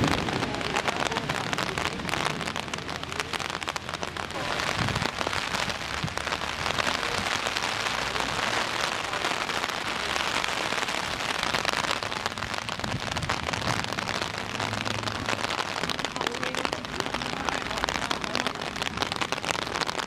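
Steady rain falling and pattering on surfaces.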